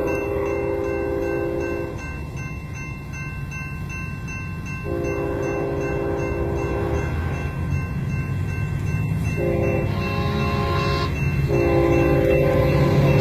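Locomotive air horn sounding the grade-crossing signal: two long blasts, a short one, then a long one. It plays over a steady low train rumble that grows louder as the train nears, with a crossing bell ringing faintly.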